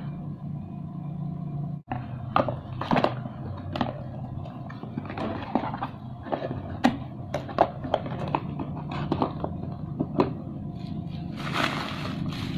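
Irregular clicks, taps and light knocks of fishing tackle and its packaging being handled, over a steady low hum. Near the end a rushing noise comes in.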